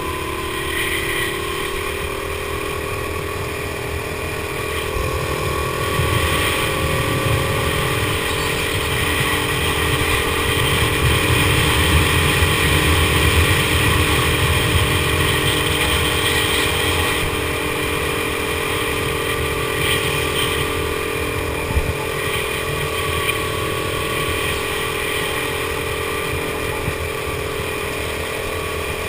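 Go-kart engine running hard, heard from the driver's seat over a low rumble, its steady note growing louder and rising a little about six to fourteen seconds in, then easing off again.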